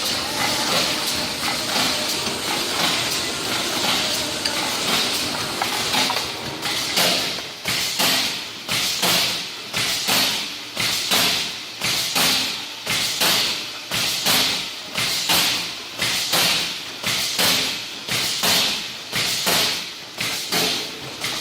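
Fully automatic aerosol filling machine running: a steady hiss of air, then from about six seconds in an even cycle of sharp knocks each followed by a burst of hiss, about one and a half a second.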